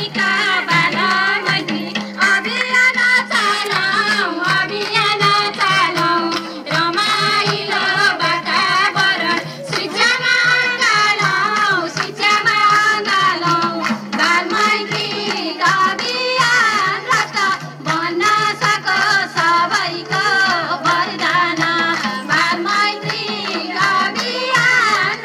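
Nepali Teej folk song: a high singing voice with a melody over a steady hand-drum beat, played loud for the dancers.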